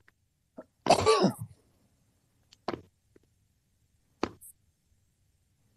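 A person's brief throaty vocal sound about a second in, falling in pitch, followed by two sharp clicks, heard over a live voice-chat stream.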